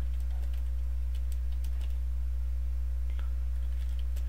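Computer keyboard typing: scattered, uneven key clicks over a steady low hum.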